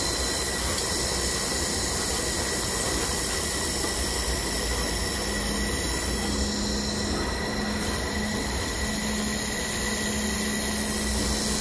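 IPG LightWELD handheld fiber laser welder running a continuous-wave weld with wire feed around a stainless steel tube: a steady hiss with faint steady tones. A low hum joins about five seconds in.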